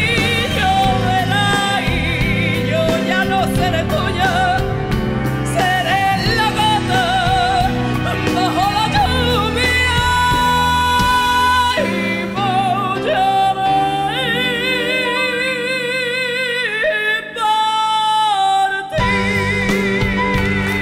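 A woman sings a ballad with strong vibrato over a live band of piano, guitar and drums. About two-thirds of the way in the band thins out beneath a long held vocal note, and the full band comes back in near the end.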